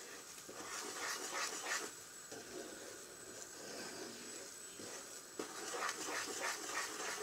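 Wooden spoon stirring flour roasting in butter and oil in a frying pan, scraping the pan in repeated strokes over a faint steady sizzle from the bubbling fat. It is the roasting stage of flour halva.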